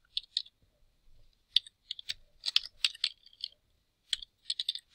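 Typing on a computer keyboard: an irregular run of key clicks, thickest from about a second and a half to three and a half seconds in, with a few more near the end.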